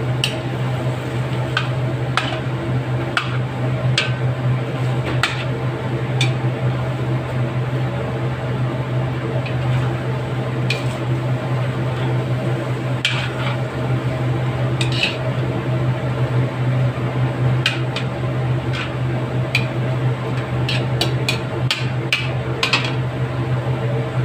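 Metal spoon stirring and scraping sauced chicken in a metal wok, with scattered sharp clinks of spoon on pan. A steady low hum runs underneath.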